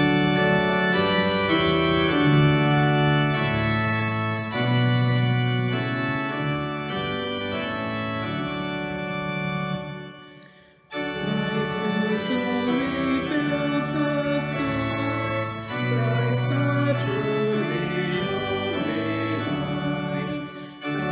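Organ playing sustained chords of a hymn, breaking off for about a second near the middle; when it resumes, voices sing the hymn along with the organ.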